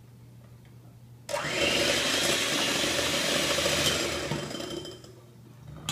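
Electric hand mixer switched on, its beaters running in a bowl of butter as it is creamed. It starts about a second in, runs steadily for about three seconds, then winds down and stops.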